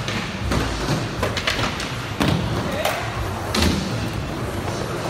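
Skateboard wheels rolling on a concrete floor, with the board thudding and clacking against the ground about five times as tricks are tried.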